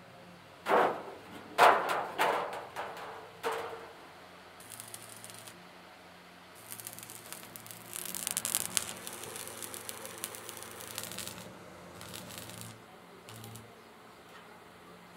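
Thin steel sheets cut from an oil drum clanging and rattling as they are handled and set down: four sharp metallic hits with a short ring in the first few seconds. Then the crackle and sizzle of a stick arc welder tacking the sheets together, in a brief burst, a longer run of several seconds in the middle, and two short tacks near the end.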